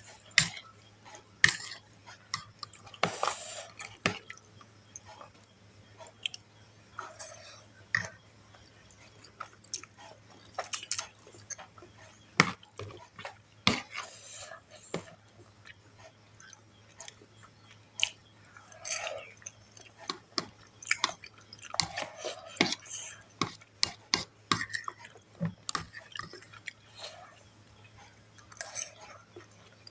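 Close-miked chewing of mie goreng fried noodles, with frequent short, sharp clicks and smacks at irregular intervals.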